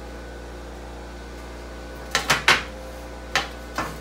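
Sharp metal clanks, a quick cluster of three about two seconds in and two lighter knocks near the end, as a freshly welded steel seat pan and its brackets are handled on a cluttered workbench. A steady low hum runs underneath.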